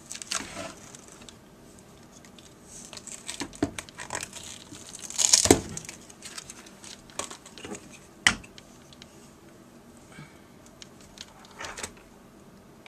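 Handling and refitting parts on a laptop screen frame: scattered light clicks and rustling, with a louder scraping rustle about five seconds in and a single sharp click about eight seconds in.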